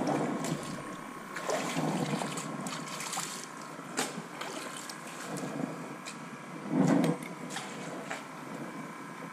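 Water sloshing and trickling at the water's edge, with a few sharp clicks and a louder burst about seven seconds in.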